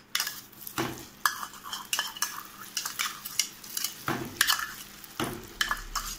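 Spoonfuls of cream going into hot caramelized sugar in an aluminium pan: a spoon clinking and scraping against the pan again and again, over the sizzle of the hot caramel.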